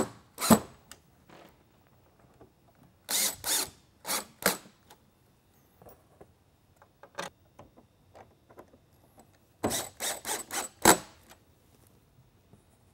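Cordless drill/driver driving mounting screws down into a lightbar's plastic dome top, running in several short bursts with pauses between screws and a cluster of quick pulses about ten seconds in. Each screw cinching fully down seals the top to the base.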